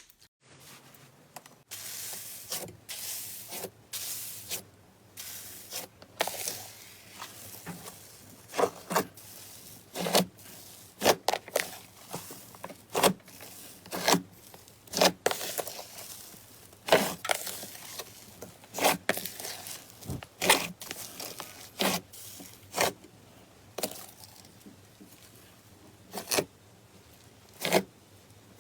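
Slime being squished and stretched by hand: sharp sticky clicks and pops at irregular intervals over a soft rubbing.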